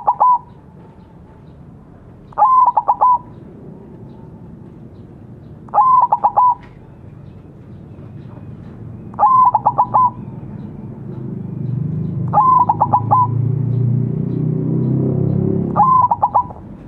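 Zebra dove (perkutut) singing its cooing song: six short phrases, each a quick stuttering run of coos, repeated about every three and a half seconds. A low rumble swells in the background during the second half.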